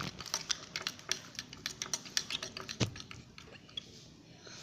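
A stirrer beating thick, still-sticky homemade slime in a small bowl: rapid irregular clicks and taps, with one louder knock a little before the three-second mark, thinning out toward the end.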